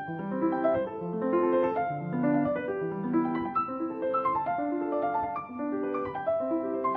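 Background piano music: a flowing melody over steady accompanying notes.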